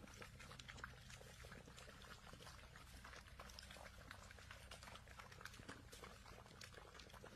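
Several Labrador puppies lapping water from a stainless steel bowl: faint, quick, irregular laps and small splashes over a low hum.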